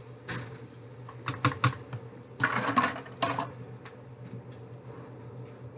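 Plastic measuring cup clicking and knocking against a bowl as broth is scooped, then a burst of sizzling and splashing for about a second as the broth is poured into a hot pan of browned rice and vermicelli. A steady low hum runs underneath.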